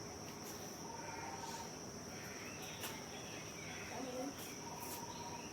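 Steady high-pitched insect trill, like a cricket, with faint bird chirps and whistles and a few light clicks.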